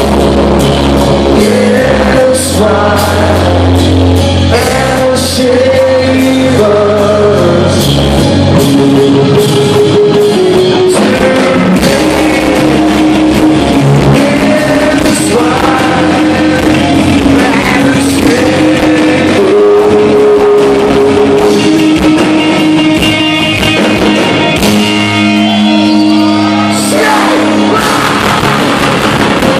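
Post-hardcore band playing live: electric guitars and a full band under a sung lead vocal with long held notes, loud and steady, recorded from within the audience.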